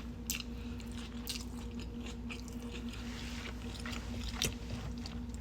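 A person chewing food close to the microphone, with scattered short mouth clicks and smacks. A faint steady hum runs underneath.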